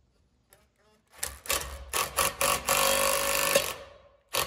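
A handheld power tool driving the screw of a large C-clamp press in several short bursts and then a longer run, pressing a U-joint bearing cap into a driveshaft yoke. It stops shortly before the end and starts again right at the end.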